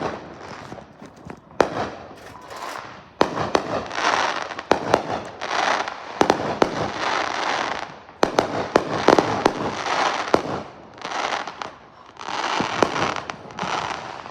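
Fireworks going off: many sharp bangs and cracks, interleaved with stretches of crackling hiss that each last a second or two.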